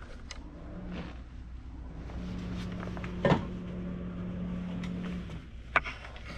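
Footfalls and knocks as a person climbs down a ladder through a deck hatch into a boat's engine room, with a sharper knock about three seconds in and another near the end. A steady low hum runs underneath.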